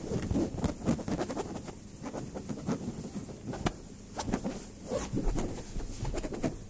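Scrabbling and rustling on a fabric couch and its cushions, as ferrets play and a hand moves among the cushions: many quick, irregular scratches and clicks.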